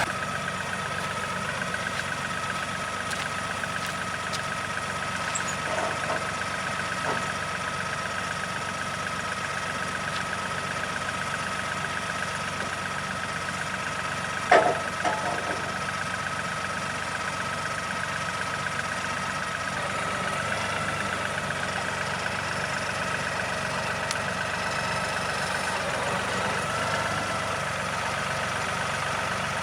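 Woodland Mills HM126 portable bandsaw mill's engine running steadily, with one sharp knock about halfway through.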